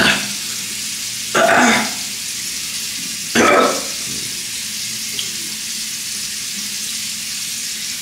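Bathroom sink tap running in a steady hiss, with two louder splashes of water about a second and a half and three and a half seconds in as the face is rinsed.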